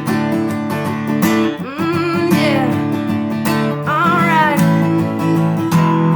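Acoustic guitar strumming chords, with two short gliding melodic phrases over it about two and four seconds in.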